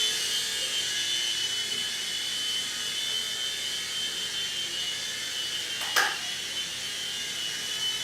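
Small electric motors and twin coaxial plastic rotors of a toy indoor RC helicopter, the Propel Stealth Flyer 2, whining steadily in flight. A single sharp knock about six seconds in.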